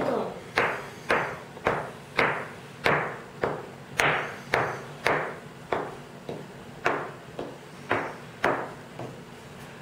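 Steady tapping on a tabletop: a run of sharp knocks, nearly two a second, each with a short ring.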